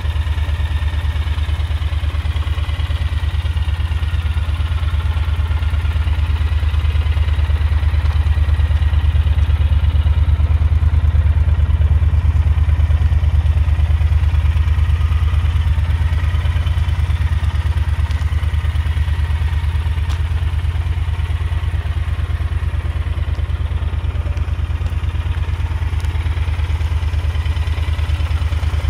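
Triumph Thunderbird 1600's parallel-twin engine idling steadily, a deep, even exhaust beat that grows a little louder in the middle.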